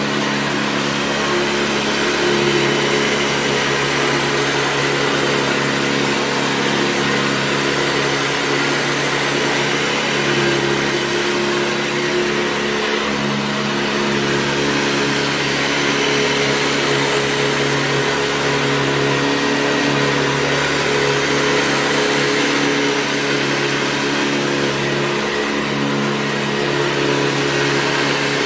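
Hoover Convertible U4193 upright vacuum cleaner running steadily: an even motor hum under a broad rush of air.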